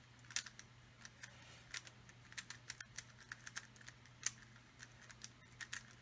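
Moyu RS3M 2020 3x3 speedcube fitted with loose 4x4 corner pieces being turned in a solve: a quick, irregular run of small plastic clicks, several a second, as the wobbly pieces snap out and back.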